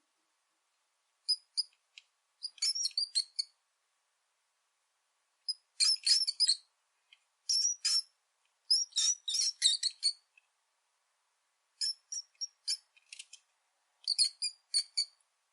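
Rat squeaking: clusters of short, high-pitched squeaks in quick runs, separated by pauses of a second or two.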